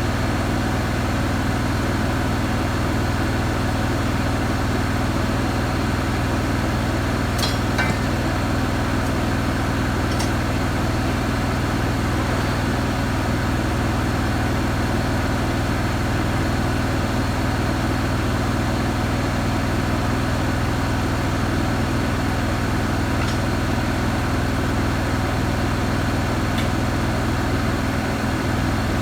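Miller Trailblazer 325 welder-generator's engine running steadily at idle, before any load. A few faint clicks are heard about 7 and 10 seconds in and again near 23 seconds.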